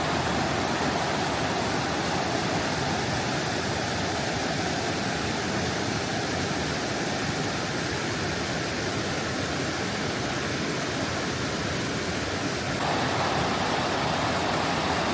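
Waterfall in flood after heavy rain: a steady, even rush of falling water, growing a little louder near the end.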